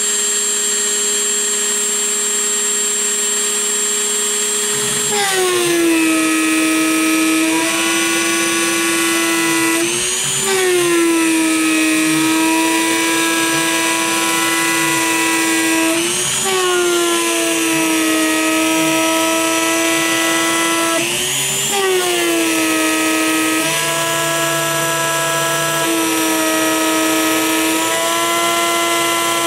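An old, worn Dremel-clone rotary tool, with heavy runout, whines at a steady high pitch as the spindle of a DIY CNC router while it engraves into a plastic sheet. Its pitch drops about five seconds in and wavers briefly every five or six seconds after that.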